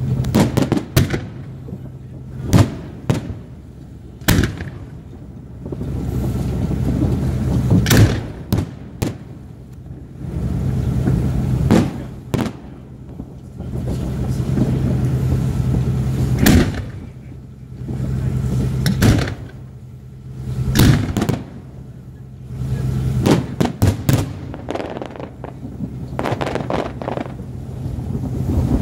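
Aerial fireworks shells bursting in quick, irregular succession: about fifteen sharp bangs, with stretches of rolling rumble and crackle between them.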